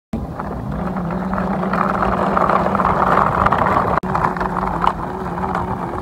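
Engine-like vehicle running: a steady low hum that glides up in pitch at the start and then holds, with a brief dropout about four seconds in.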